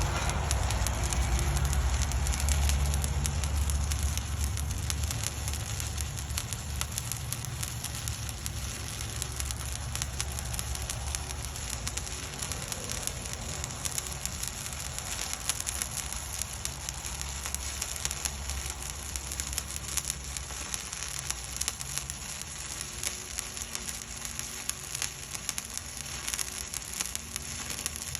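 Stick-welding arc burning a 1/8-inch 7018 rod at about 124 amps, a steady frying crackle of dense fine pops. A low hum sits underneath, strongest in the first few seconds.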